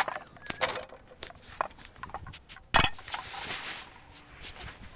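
Knife clicking and scraping against a metal frying pan while raw chicken is cut up, with a sharp knock about three seconds in followed by a short rasping scrape.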